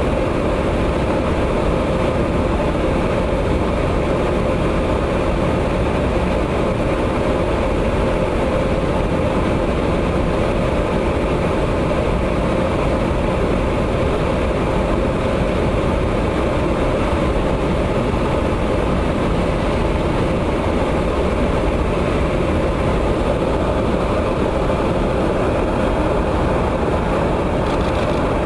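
Steady in-flight drone inside a KC-135 Stratotanker: jet engine and airflow noise with a constant hum, unchanging throughout.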